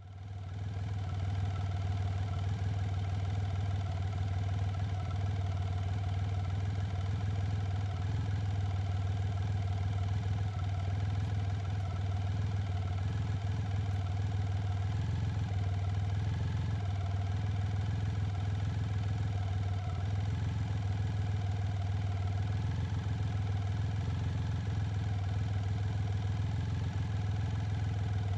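1990 BMW K75's three-cylinder engine running steadily at an even pitch.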